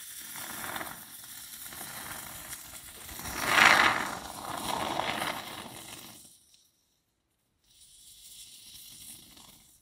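Can of expanding insulating spray foam dispensing through its straw nozzle: a hiss that grows loudest about three and a half seconds in and stops around six seconds, then a second, fainter spray near the end.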